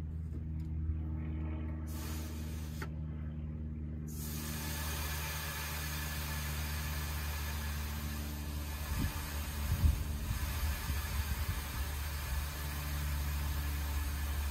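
Air hissing out of a pickup truck's rear air spring as it is let down: a short spurt, then a steady hiss from about four seconds in, over a steady low drone. A few low knocks come about nine to eleven seconds in.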